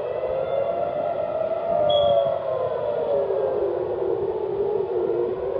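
Civil defense air raid siren wailing, its tone sliding slowly down and beginning to rise again near the end. It is the rocket-attack warning.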